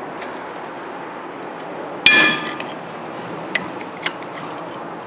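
A single sharp metallic clink that rings briefly about two seconds in, followed by two faint ticks: a steel screwdriver levering against the rear brake caliper and pad to push the caliper piston back into its bore.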